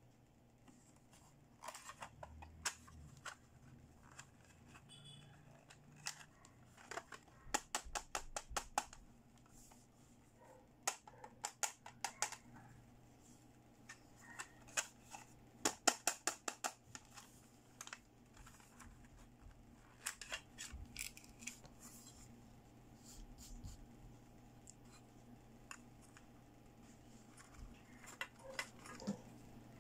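A hard plastic toy makeup compact handled by hand: several quick runs of sharp clicks and taps, with quieter handling noise between them, as the lollipop-shaped compact is picked up and opened.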